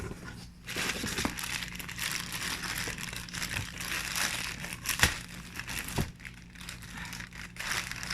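Packaging crinkling and rustling as it is handled and unwrapped, with two sharp clicks about five and six seconds in.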